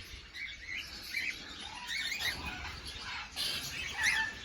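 Cockatiels chirping and calling, many short rising and falling chirps overlapping, with a brief rustle or flutter near the end.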